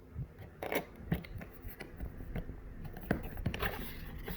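Irregular handling noises: light scrapes, rustles and soft knocks as the robot vacuum and its packaging are handled.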